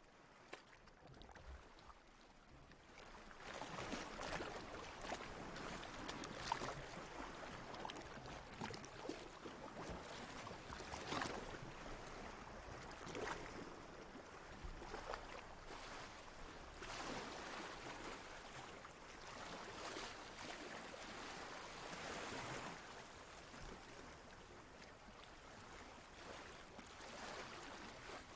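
Faint ocean water lapping and splashing in repeated swells about every two seconds, quiet at first and growing louder a few seconds in.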